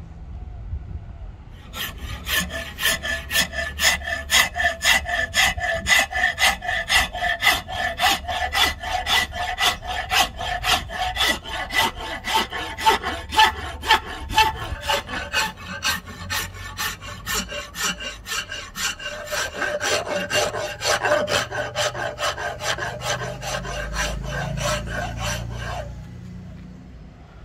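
Hand wood rasp filing a Siamese rosewood stick clamped in a vise, in steady back-and-forth strokes about two to three a second, with a faint ringing tone under the strokes. The rasping starts about two seconds in and stops shortly before the end.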